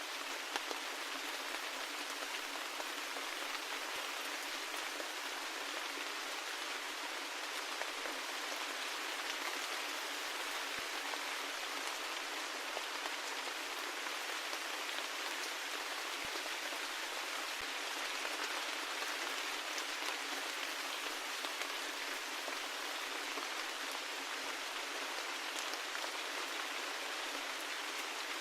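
Steady rain falling, an even patter with now and then a single louder drop standing out.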